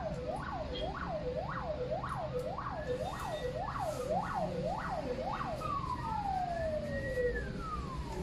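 Emergency vehicle sirens: one in a fast yelp, rising and falling about twice a second, which gives way about two-thirds of the way through to a slow wail, with a second siren slowly rising and falling beneath it.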